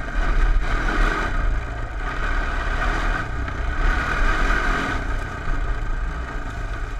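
Honda TRX 250 ATV's single-cylinder engine running under throttle while riding on snow, its revs swelling about a second in and again in the middle before easing back.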